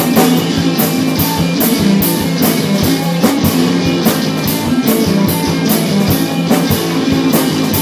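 A rock band playing a song: electric guitar over a drum kit keeping a steady beat, with frequent cymbal hits.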